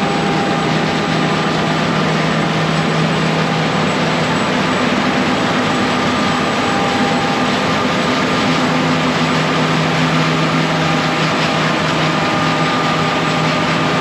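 Combine harvester running steadily while harvesting wheat: a constant loud machine drone with a few steady humming tones over it.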